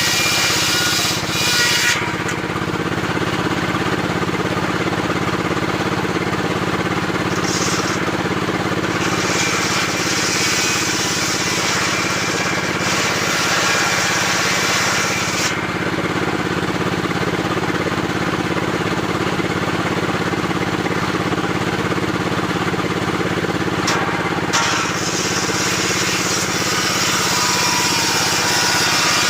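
Circular saw cutting long timber, running steadily with a constant machine hum underneath. The higher sawing noise changes several times as the cut goes on.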